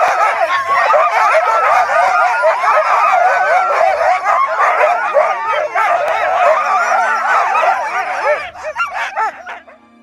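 A team of Greenland sled dogs yelping and howling all at once, many high, wavering cries overlapping in an excited chorus as a seal is butchered in front of them; it cuts off suddenly near the end.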